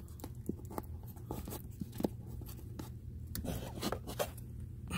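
Light scraping with scattered small clicks and taps as a hand feels over wooden roof sheathing, one tap louder about two seconds in, over a low steady hum.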